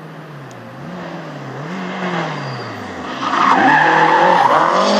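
Rally car approaching, its engine revving up and down through the gears and growing louder, then its tyres squealing loudly from about three seconds in as it takes the corner.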